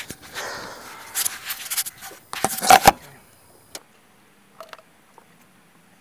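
Rubbing and scraping handling noise as the camera is moved and set down, loudest about halfway through, then a few light clicks.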